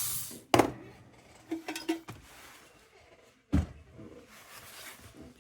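Rotary tool spinning down with a falling whine in the first half second, then a few separate knocks and clunks of handling, the loudest soon after the start and about three and a half seconds in.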